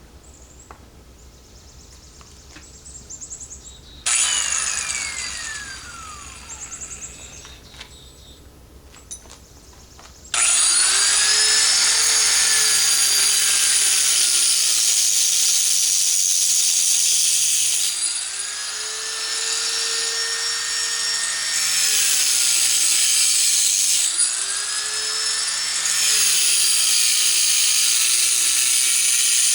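Sears disc grinder cutting rock. About four seconds in it is switched on briefly and winds down, its pitch falling. From about ten seconds in it runs continuously, its motor pitch sagging and recovering several times as the disc bites into the stone.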